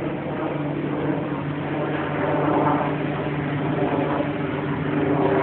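An engine running steadily, a low hum at one pitch that settles in about half a second in over general background noise.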